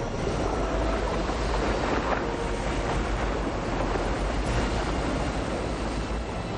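Loud, steady rushing of churning water, with faint music tones underneath.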